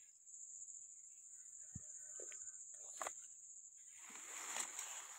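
Faint, steady high-pitched insect drone, like crickets, with a few soft clicks and, from about four seconds in, a rustling of leaves and branches brushing against the phone as it moves through the citrus tree.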